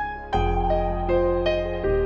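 Soft instrumental background music: a slow melody of struck notes over a sustained low bass.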